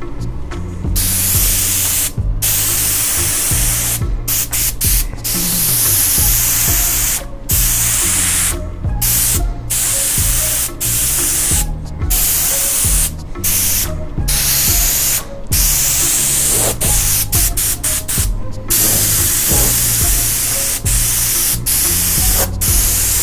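Airbrush hissing as it sprays paint, switched on and off with many short breaks as the trigger is released and pressed again.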